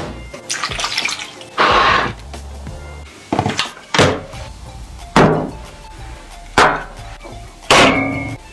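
Background music, with a run of sharp knocks about once a second through the second half.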